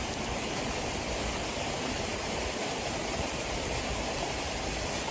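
Steady rushing of water from a flood in heavy rain, an even noise with no distinct events.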